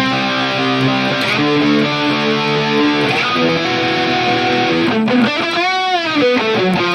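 Electric guitar played through a digital multi-effects modeler with a detune chorus effect, ringing out held chords. About five seconds in, the whole chord bends up in pitch and falls back.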